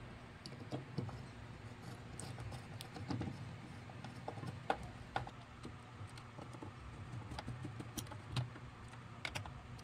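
Hand screwdriver turning the mounting screw of a small power transformer on a turntable's base: faint, scattered small clicks and scrapes.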